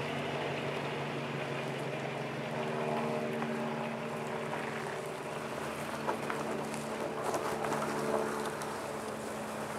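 Pickup truck engine running steadily under load as it tows a felled, limbed tree trunk on a steel cable, the log scraping and crackling as it drags over gravel and dirt. Sharper snaps and knocks join in from about six seconds in as the log passes close by.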